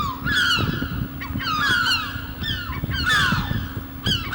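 Birds calling: bouts of quick, falling, honking calls about once a second, over a steady low hum.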